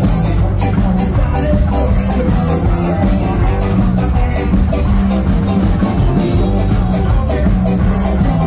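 Live ska-punk band playing loudly: drum kit keeping a steady beat under electric bass and guitar.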